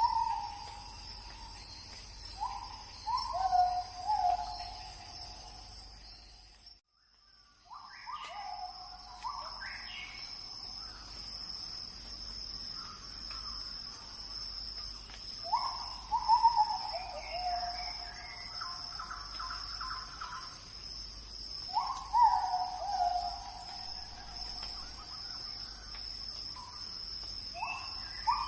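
Birds calling in short falling phrases repeated every few seconds over a steady high insect drone, with a brief dropout about seven seconds in.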